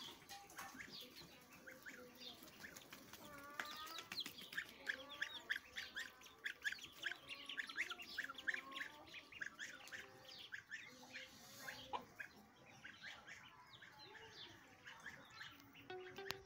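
A white pet duck's short calls and chirps while being hand-fed roti: a rapid run of quick, short notes, thickest in the middle of the stretch.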